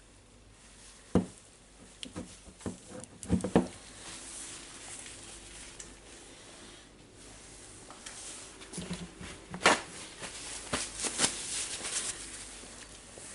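Hand work on tool parts at a workbench: scattered sharp clicks and knocks of parts and hand tools being handled, with stretches of scraping or rubbing noise in the middle and in the second half.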